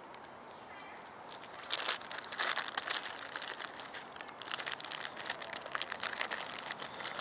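Packaging crinkling and rustling as it is handled, starting about two seconds in: a dense run of crackles and small clicks.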